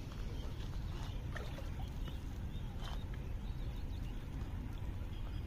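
Steady low rumble of outdoor background noise at a lakeshore, with a few faint ticks scattered through it.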